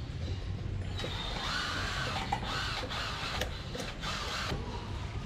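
Screw being turned into the scooter's plastic floor panel with a T-handle tool: a run of fine, rapid clicking from about a second in until near the end, with a few sharper clicks.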